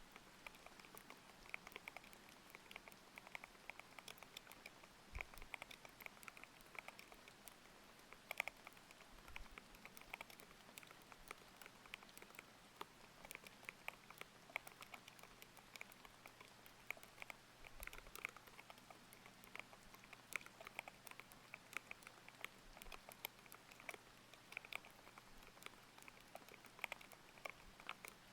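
Steady, irregular typing on a thocky mechanical keyboard with Aqua King linear switches, several key presses a second, over an even patter of rain.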